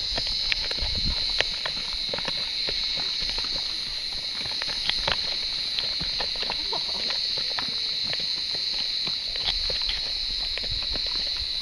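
Horses walking on a dirt track, their hooves clopping unevenly over a steady high-pitched hiss.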